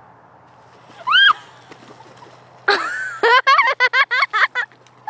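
A short rising cry about a second in, then a loud burst of rapid high-pitched laughter, over faint splashing from a boy who has broken through thin pond ice into the water.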